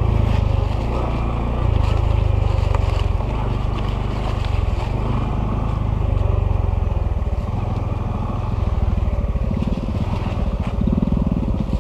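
Honda CT125 motorcycle's single-cylinder four-stroke engine running under way on a rough dirt trail, its note rising and falling with the throttle a few times. Short rattles and knocks from the bike going over the bumpy ground.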